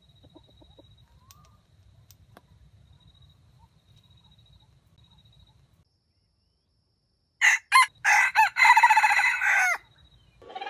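Red junglefowl rooster crowing: about seven seconds in, two short sharp notes, then a crow of about two seconds that comes out broken and stuttering and falls away at the end.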